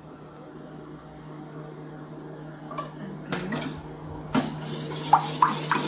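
Metal whisk scraping and clinking against a stainless steel mixing bowl, stirring warm cream into chocolate. It starts about three seconds in, with a sharp knock just past four seconds and short ringing pings after. Before that there is only a low steady hum.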